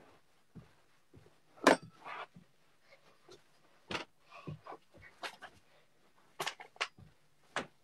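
Irregular knocks and thumps of hands and feet on a carpeted floor during a crab walk, with soft brushing between them. The loudest knock comes about two seconds in.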